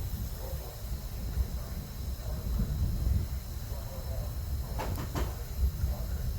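Steady low rumbling noise with faint muffled voices, and two sharp clicks close together about five seconds in.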